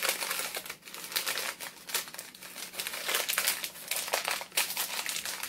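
Crinkling and rustling of a small kraft-paper card box being handled, with many irregular crackles as fingers pick at its taped top flap.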